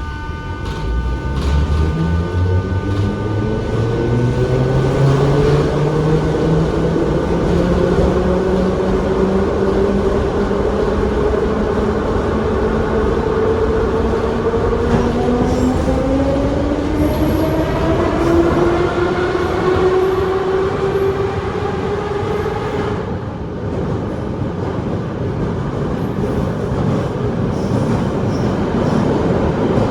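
Moscow Metro 81-717 train accelerating: its traction motors' whine rises steadily in pitch over rail and wheel running noise, then stops suddenly a little over 20 seconds in as power is shut off and the train runs on with just the running noise.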